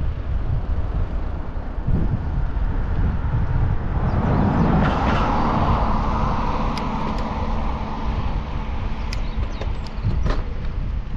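Wind rumbling on a bike-mounted action camera's microphone while riding. A motor vehicle passes from about four seconds in, its sound swelling and then fading over a few seconds. A few sharp clicks and rattles come near the end.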